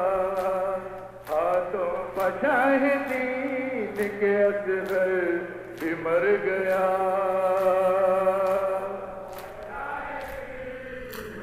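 Men chanting a noha, a Muharram lament, in unison behind a lead reciter at a microphone, holding long wavering notes. A steady rhythm of sharp chest-beating (matam) slaps runs under the chant.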